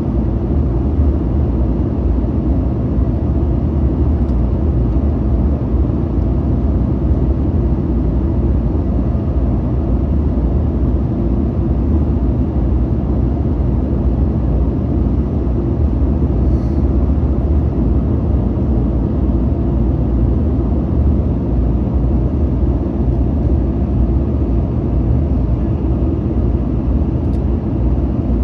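Steady low cabin noise of a Boeing 737-900ER in flight, heard from a window seat: airflow over the fuselage and the engines blend into an even, unchanging rumble.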